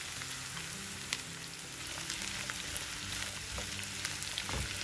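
Sliced bitter gourd and onion sizzling steadily as they fry in hot oil in a pan, with a single sharp click about a second in.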